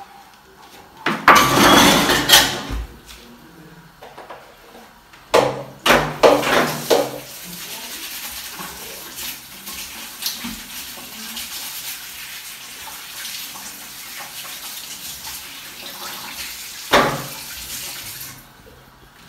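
Kitchen clatter of pots, pans and utensils: a loud clattering burst about a second in and a few sharp knocks around six seconds, then a steady hiss for about ten seconds with one more knock near the end.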